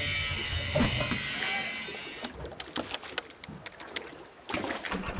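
Intro sound effects: a hiss-like noise for about two seconds, then a run of sparse light clicks like keys being typed as title text appears, and a louder noise rising near the end.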